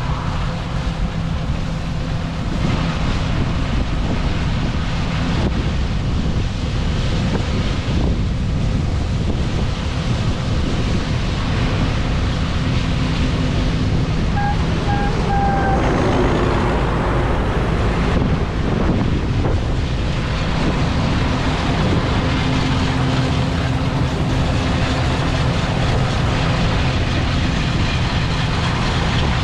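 John Deere 9570 STS combine running steadily while harvesting soybeans: a low engine hum under a steady rushing noise. About halfway through, three short beeps sound.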